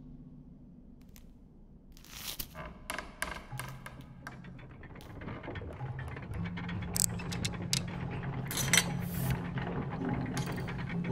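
Clockwork mechanism of gears and ratchets clicking and turning. The clicks start sparse about two seconds in and thicken into a dense run over a steady low hum.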